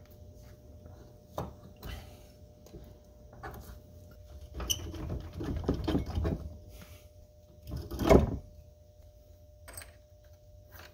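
Metal parts clunking and scraping as a front CV axle's splined shaft is worked into the steering knuckle hub, with a few light clicks, a stretch of scraping, and one loud knock about eight seconds in.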